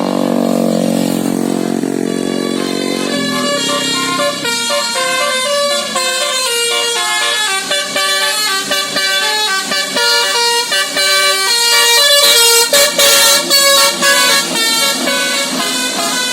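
Basuri musical air horn on a bus playing a quick telolet melody of short stepped notes. It starts about three seconds in, after a lower held drone, and gets louder near the end.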